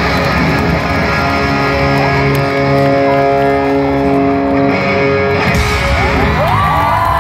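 Electric guitar played live through an arena PA, holding sustained notes over crowd noise. Crowd cheers rise near the end.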